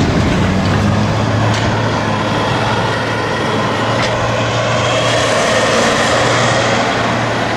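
A vehicle engine running steadily at a constant speed: a low, even hum under a steady rushing noise.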